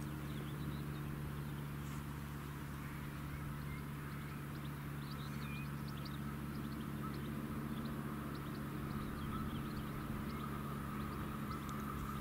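DB class 146.2 electric locomotive approaching from a distance: a steady low hum with a thin whine that comes in about halfway and grows clearer. Birds chirp throughout.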